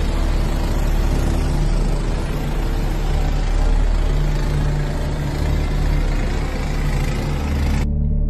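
An engine running steadily, a low hum under a dense rushing noise. The noise cuts off abruptly near the end, leaving a low drone of music.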